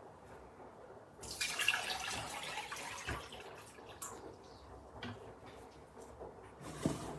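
Water pouring into a collapsible dog bowl for about three seconds, starting a little over a second in, then quieter splashing with a couple of soft knocks near the end.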